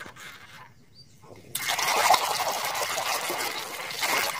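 A hand churning and splashing a tub of foamy, muddy water. The loud, continuous splashing starts suddenly about a second and a half in.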